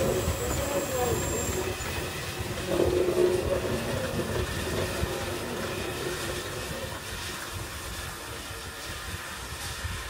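WHR NGG16 Garratt No. 130 steam locomotive rolling slowly past and away around a curve, its wheels squealing on the rails at the start and again about three seconds in. The rumble fades as it moves off.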